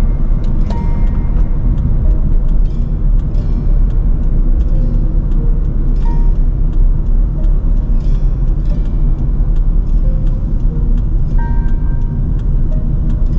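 Car driving along: steady low road and engine rumble, with background music of short plucked notes over it.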